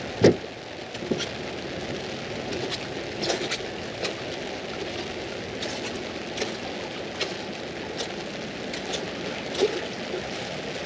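Rain falling on an umbrella overhead: a steady hiss with scattered sharp taps of drops hitting the fabric, one loud tap right at the start and another near the end.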